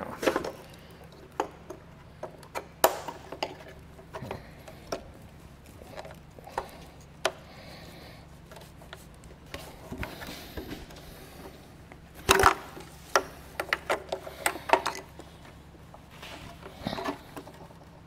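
Scattered plastic clicks and taps as wiring-harness clips are pried off the back of a 2020 Jeep Grand Cherokee taillight housing and its connector is unplugged. A quick run of louder clicks comes about twelve seconds in.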